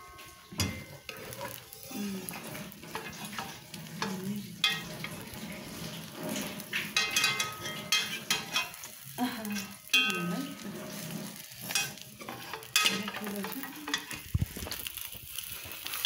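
Vegetable omelet sizzling in a nonstick frying pan, with a spatula and fork scraping and tapping against the pan as the omelet is loosened and lifted.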